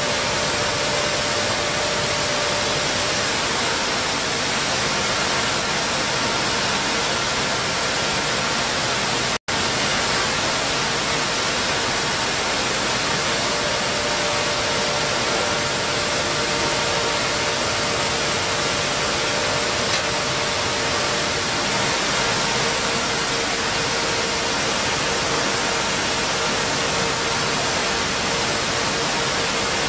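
Steady loud noise of a stone flour mill plant's machinery running, with a few faint steady tones under it. The sound cuts out for an instant about nine and a half seconds in.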